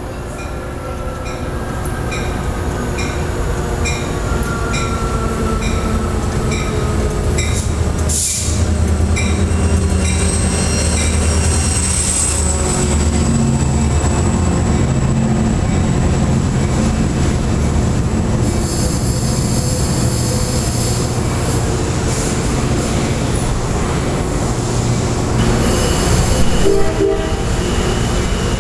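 Amtrak passenger train approaching and passing directly underneath: a diesel locomotive's rumble swells about eight seconds in, then the stainless-steel cars roll by with wheel noise and squeal. A bell dings about twice a second through the first eight seconds.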